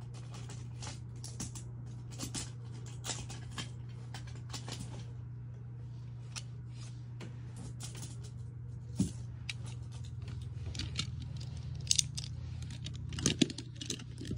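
Light, irregular plastic clicks and taps of Beyblade tops and gear, a little louder near the end, over a steady low hum.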